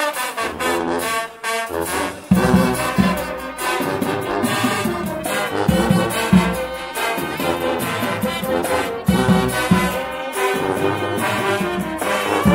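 Swiss Guggenmusik carnival band playing: massed trumpets and trombones over a regular low beat. After a brief dip, the full band comes in loudly a couple of seconds in.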